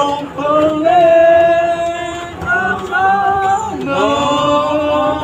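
A group of voices singing together unaccompanied inside a bus, holding each note for a second or more before moving to the next.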